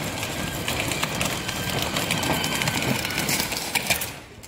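Children's electric ride-on toy quad driving over stone paving: the hum of its electric motor with the clatter of its plastic wheels over the stones. It is loudest as it passes close, then falls away sharply near the end.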